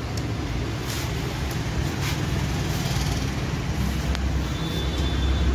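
A vehicle engine running steadily at idle, a low even hum, with a few light clicks and a short high beep near the end.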